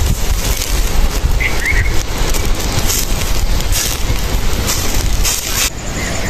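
Wind buffeting the microphone, a steady rumble with gusts. A bird chirps briefly about a second and a half in.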